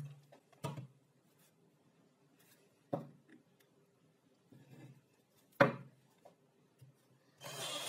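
Plywood pieces handled and set down on a wooden workbench: three short wooden knocks, the loudest a little past halfway, with faint rubbing between them and near silence otherwise. A steady noise starts shortly before the end.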